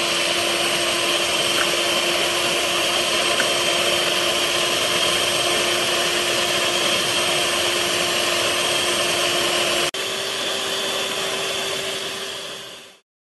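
Electric hand mixer running steadily, its beaters whipping cream in a stainless steel bowl. About ten seconds in it breaks off for an instant, then runs on slightly quieter and a little higher in pitch before fading out near the end.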